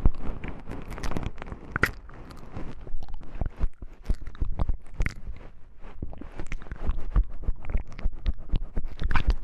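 Close-miked ASMR handling of wooden knobs: a dense, irregular run of small clicks, taps and scrapes.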